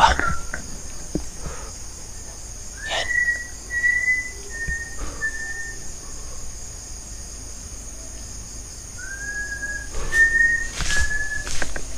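Unseen whistling: four short, clear whistled notes about three seconds in, then three more near the end. Each note slides up at its start and then holds level.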